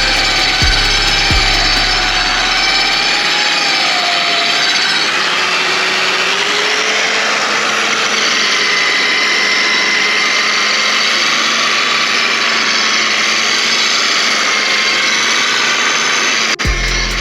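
Parkside PWBS 180 B2 wall and floor sander running and sanding: a loud, steady rasping noise over a motor whine that wavers in pitch. It breaks off abruptly near the end.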